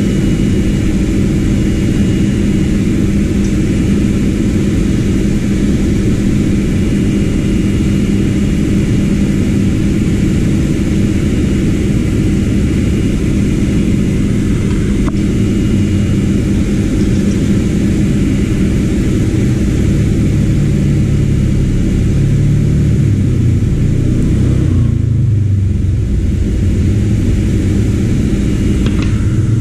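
A motor running steadily with a loud, even whir and a constant hum; its low pitch wavers about two-thirds of the way through.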